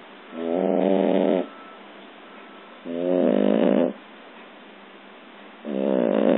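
A six-month-old snoring in its sleep: three snores, each about a second long and coming roughly every two and a half seconds.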